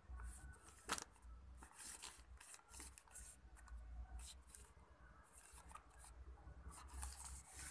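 Faint crinkling and scraping of an earphone blister pack, cardboard backing and clear plastic shell, being handled and turned over in the hand, with one sharp tap about a second in.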